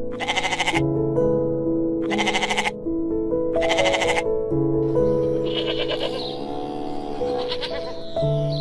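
Sheep bleating three times in short calls during the first half, over background music with slow, sustained notes.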